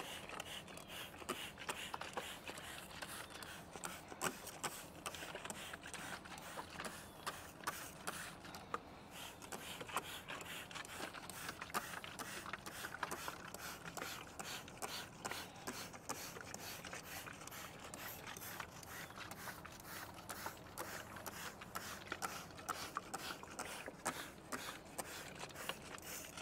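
Plastic trigger spray bottle squeezed over and over, each pull a short click and a spritz of spray onto a wooden fence, in many quick, unevenly spaced strokes.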